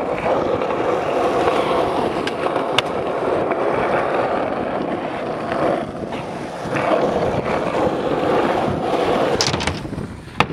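Skateboard wheels rolling steadily over rough, worn concrete. A few sharp clacks of the board's tail popping and the board landing come through, the loudest near the end.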